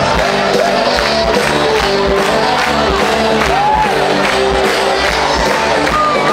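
Party cover band playing upbeat music with a steady beat and singing, with crowd voices shouting and cheering over it.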